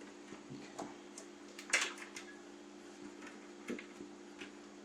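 Light clicks and rattles of a cable being handled and pulled through a metal computer case, the loudest a short cluster a little under two seconds in, over a steady low hum.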